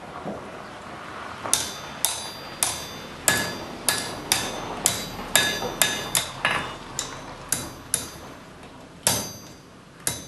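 Blacksmith's hand hammer striking a hot S-hook on the anvil, flattening the hook: a run of ringing metallic blows at about two a second, with a short pause near the start and another just after eight seconds.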